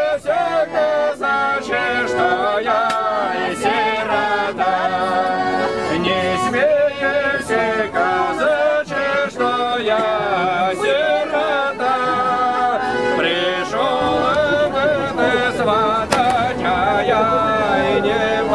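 A folk song sung to a garmon, a Russian button accordion, playing steady chords under a wavering singing voice.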